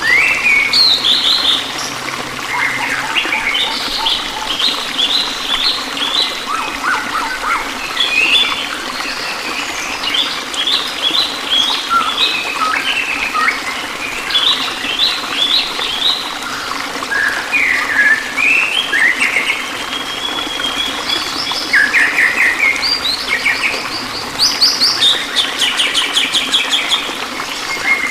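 Songbirds chirping and trilling in quick series of short notes, one burst after another, over steady running water. A bird-sound recording of the kind played to caged songbirds to coax them back into song.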